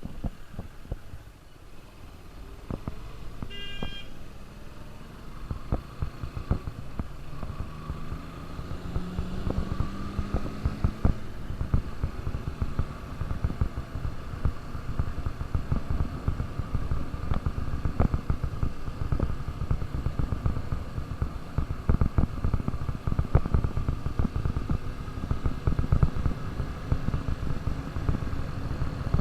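KTM RC 200's single-cylinder engine running under way, with heavy wind buffeting on the microphone; its pitch climbs as the bike accelerates about eight to eleven seconds in. A brief horn beep about four seconds in.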